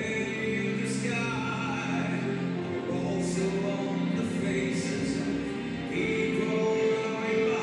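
Figure skating program music: choral singing over sustained, held tones.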